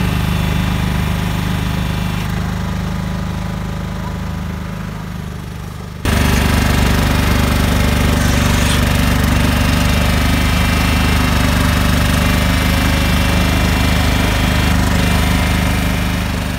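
CM F175-B compact asphalt paver running while it lays asphalt: a steady engine drone with the rapid rattle of its vibrating screed. The sound jumps louder about six seconds in.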